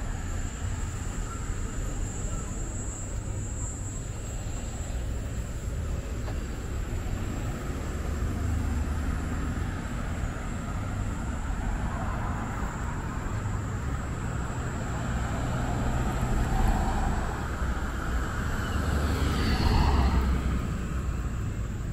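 Cars driving past on the road, steady engine and tyre noise that swells as vehicles go by, loudest near the end. A thin, steady high-pitched tone runs underneath.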